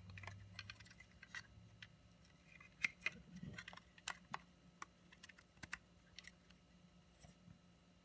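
Faint, scattered clicks and taps of the plastic housing, wheel and motor of a Roomba 650 wheel module being handled and fitted together by hand, the sharpest click about three seconds in, over a faint steady hum.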